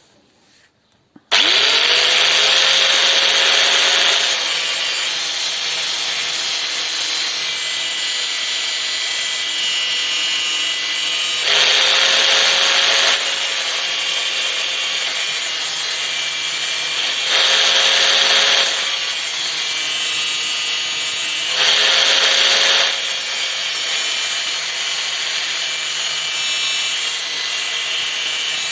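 A small electric power tool starts up about a second in, its motor whine rising quickly to speed, then runs steadily. Several times it turns harsher and brighter for a second or so, as it cuts or grinds into the work.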